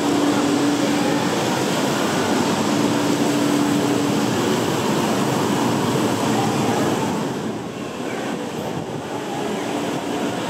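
Train running: a steady rumble and rush with a low hum that comes and goes, growing somewhat quieter about seven and a half seconds in.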